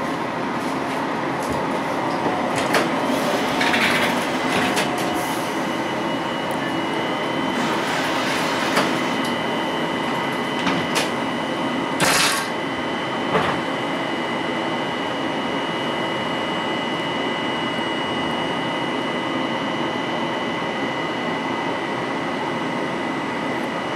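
Inside a Düsseldorf Stadtbahn light-rail car: a steady running hum, with a high, steady electrical whine that sets in a few seconds in and holds. A few sharp clicks and knocks come in the first half.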